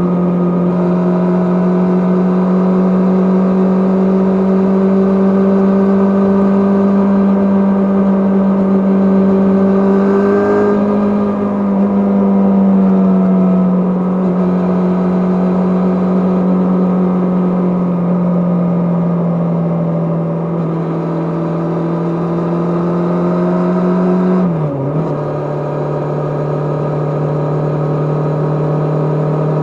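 Kawasaki GPZ550 inline-four engine running under way at a steady pitch, rising a little about a third of the way in and then slowly easing down. Near the end the revs drop sharply and settle at a lower steady pitch.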